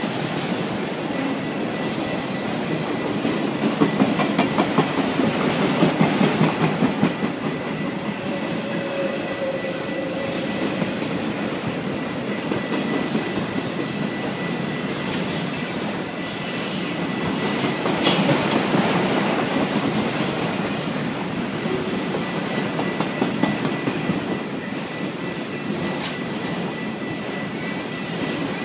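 BNSF freight train's cars rolling past close by: a steady rumble with rapid clacking of wheels over the rail joints, loudest for a few seconds near the start. A faint steady high squeal runs underneath.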